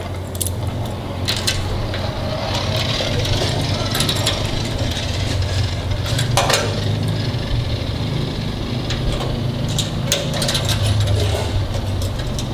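Metal clicks and clinks of a hose clamp being handled and tightened on a truck's tailgate handle, scattered through, with one sharper clink about six seconds in, over a steady low hum.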